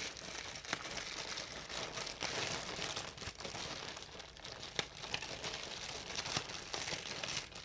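Crinkling and rustling of a plastic bag being handled and rummaged through, with occasional light clicks.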